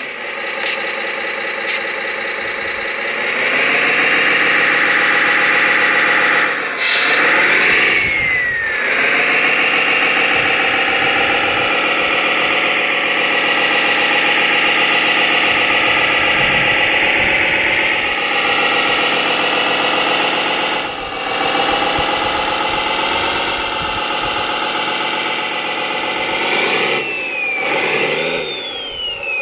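Radio-controlled model construction vehicle running with a steady engine sound, growing louder about three seconds in. A high whine falls quickly in pitch about eight seconds in and again near the end.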